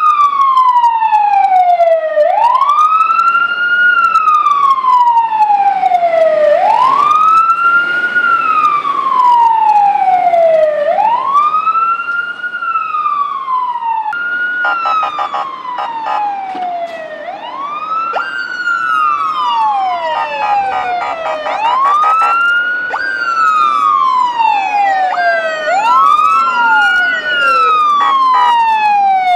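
Fire engine siren wailing in slow cycles, each rising quickly and then falling slowly over about four seconds. Over the second half a second siren wails alongside, slightly out of step.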